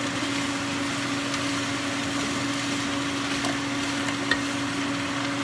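Stir-fry vegetables and chicken sizzling steadily in a frying pan as they are stirred, over a steady low hum. There is a light tap of the spatula on the pan about four seconds in.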